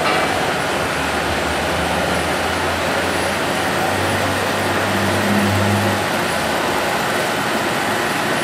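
Steady workshop background noise with a low hum that swells from about one second in and fades after about six seconds.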